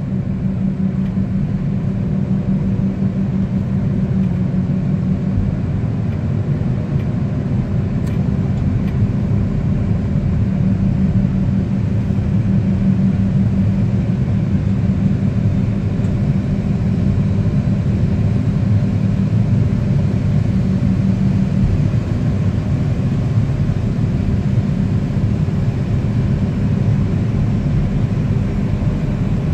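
Towbarless aircraft pushback tug's engine running steadily, with a low hum that drops out about 22 seconds in.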